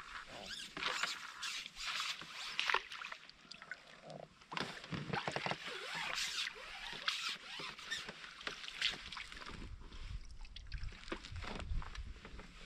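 Water splashing and sloshing in irregular bursts, mixed with short clicks and knocks.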